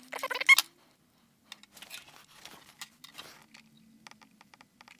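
Flush side cutters snipping component leads off the back of a circuit board: several sharp snips in under a second at the start, the loudest sound here. Faint scattered ticks and crackles follow while a joint is soldered.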